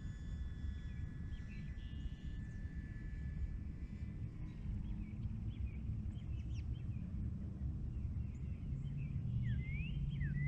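Wind rumbling on the microphone, with birds chirping from about halfway in and more often near the end. The faint hum of the E-flite Air Tractor's electric motor and propeller runs throughout and grows louder in the last couple of seconds as the plane comes closer.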